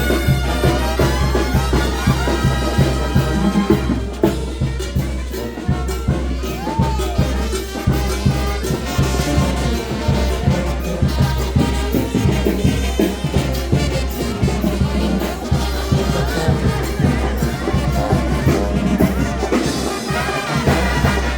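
Mexican banda brass band playing: trumpets and trombones carry the melody over a steady low brass bass line and a regular drum beat.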